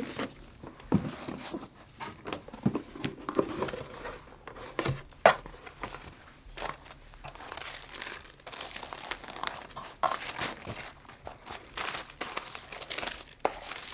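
Hermès cardboard gift box being unwrapped by hand: the ribbon pulled loose, the lid lifted off and tissue paper rustling and crinkling in short, irregular rustles, with one sharper crackle about five seconds in.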